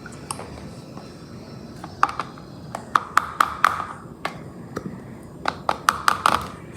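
Irregular sharp clicks and taps with a slight ring from glue bottles being emptied into a mixing bowl, coming in two clusters about two and five and a half seconds in.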